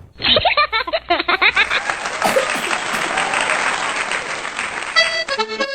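Canned laughter followed by canned applause, a comedy sound effect. A brief pitched tone with a few quick clicks sounds near the end.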